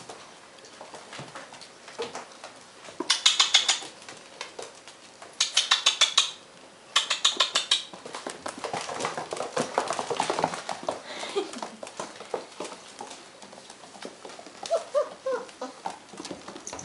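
Weimaraner puppies' claws pattering and scrabbling on a hard floor in several quick bursts of clicks, with a few short puppy whimpers near the end.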